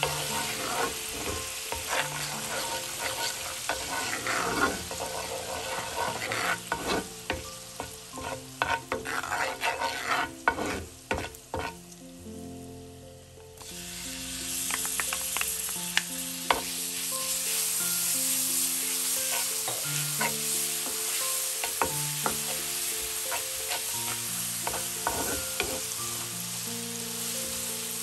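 Food frying in a pan, with a utensil stirring and scraping against it in quick clicks over the sizzle. About twelve seconds in the stirring stops and the sound dips briefly, then a steady, fuller sizzle takes over with only occasional clicks.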